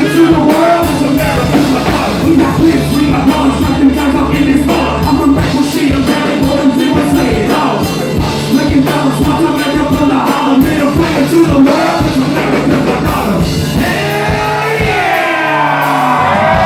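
Loud live rock music with a singer shouting and singing over the band. Near the end, several pitched lines slide upward together.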